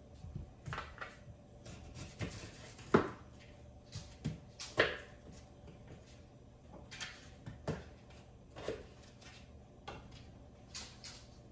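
Knife cutting potatoes on a cutting board: irregular knocks every second or so, the loudest about three and five seconds in.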